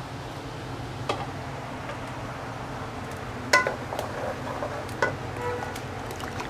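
Raw potato cubes being tipped into a steel cooking pot of vegetables, with three sharp clinks of metal on metal. The loudest, about halfway through, rings briefly. A low steady hum runs underneath.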